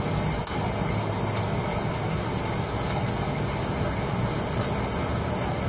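Tap water running steadily into a stainless steel sink, with a few faint clicks of kitchen scissors cutting into a trout's belly.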